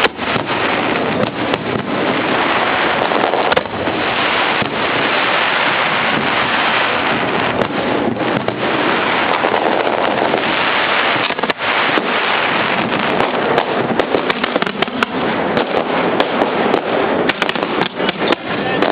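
Fireworks at close range from the launch barge: a dense, continuous barrage of shells firing and bursting, with rapid sharp crackles through the second half.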